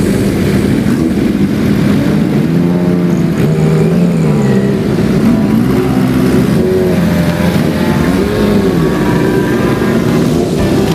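Classic motorcycle and car engines revving as they pass, several at once, their pitch rising and falling with the throttle.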